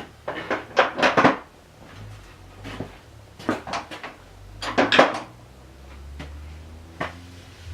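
Metal lathe parts being handled during disassembly: clusters of short clanks and knocks, the loudest about a second in and again about five seconds in. A faint low hum sets in about two seconds in.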